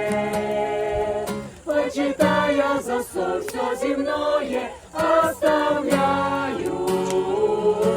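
Several voices singing a Christian song together in harmony, choir-like and largely unaccompanied, in sustained phrases with short breaks between them.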